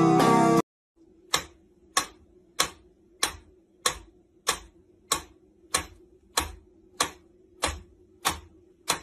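Mechanical pendulum metronome ticking steadily, about one sharp click every 0.6 s (roughly 95 beats a minute), over a faint steady hum. Drum music is heard briefly at the start and cuts off suddenly within the first second.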